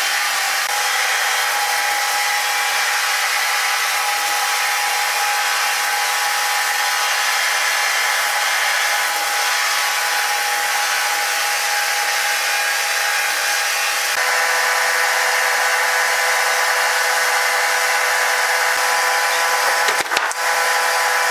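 Sawmill saw running steadily through timber: a continuous high whine with several steady tones, a little louder about two-thirds of the way through, and a brief knock near the end.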